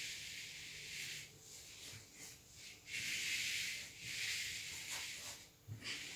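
Hissing noise in three bursts of about a second each, high-pitched and without tone, with fainter flickers between them.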